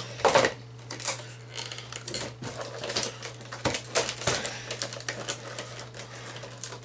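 Stiff clear plastic clamshell packaging being handled and broken apart by hand, giving irregular crackles and clicks.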